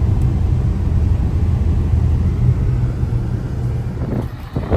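Car driving, heard from inside the cabin: a steady low rumble of road and engine noise that thins out just over four seconds in.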